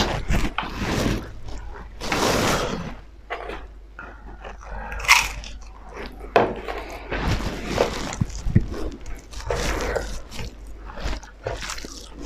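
Close-miked eating sounds: crunching and chewing of crisp fried crackers (phofi) bitten off by hand, mixed with wet chewing of rice, dal and pork.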